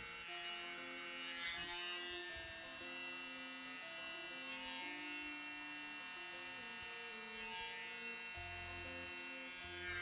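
Small electric air blower's motor buzzing steadily as it blows wet acrylic paint out across the canvas, under background music with a simple melody.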